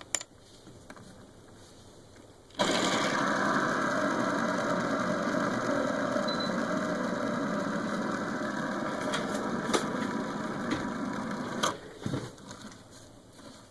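A nine-gear planetary hand spinner is set spinning. Its bearings and meshing gears give a steady mechanical whir for about nine seconds that slowly fades as it runs down. It is then stopped with a click, followed by a few light clicks.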